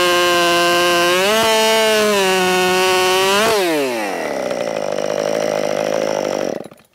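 RedMax GZ5000 chainsaw's two-stroke engine running at full throttle as it cuts through a log, its pitch dipping and recovering about a second in. About three and a half seconds in it comes off the throttle and the pitch falls quickly to a low idle. The sound then cuts off abruptly near the end.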